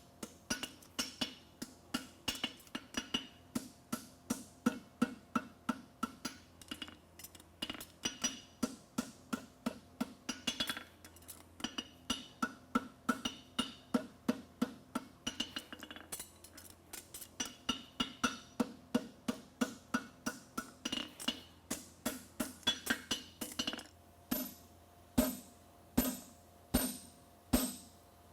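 Rapid hammer blows on a fuller against a steel horseshoe on an anvil, about three to four a second, each ringing metallically. Near the end the blows slow to about one a second and get louder.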